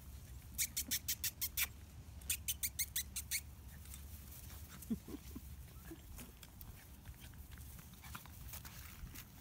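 Black Labrador puppies playing on grass, with a brief low growl from a puppy about five seconds in. Early on, two quick runs of sharp ticks, about six a second, are the loudest sounds.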